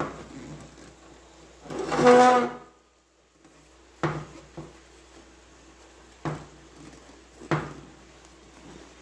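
Handling of a vinyl seat cover being worked over a seat pan on a steel workbench: low rustling with three sharp knocks spread through the second half. About two seconds in there is a short, loud pitched sound, the loudest thing heard.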